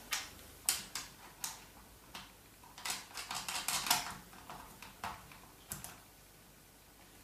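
Scattered sharp clicks and light knocks as the side cover of a Stihl MS150 TC-E chainsaw is fitted over the bar and chain by hand, with a quick run of small rattling clicks around three to four seconds in.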